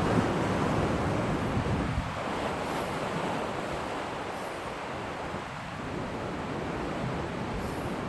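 Steady rushing noise of wind and sea waves, with wind buffeting the microphone.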